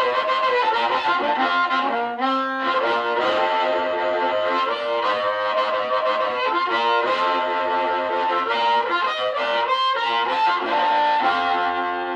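Harmonica played through a small-shell bullet mic with a CR element, cupped in the hands, into a Kalamazoo Model 2 tube amp set on about six: a continuous blues-style phrase of held notes and chords with an amplified, slightly broken-up tone.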